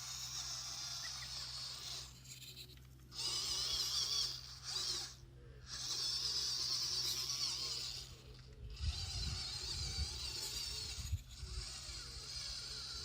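The electric motor and gearbox of a 1/16-scale WPL C24 RC truck whine in bursts as the throttle is worked on and off, cutting out several times. There are low rumbles and a few knocks between about 9 and 11 seconds in.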